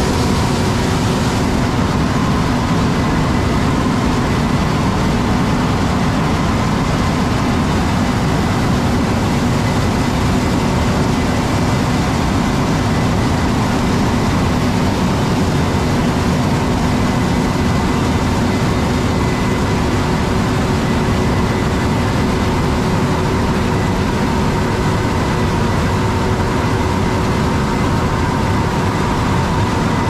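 John Deere S780 combine running steadily while harvesting corn: a constant engine and threshing drone with several steady hums and whines layered over it.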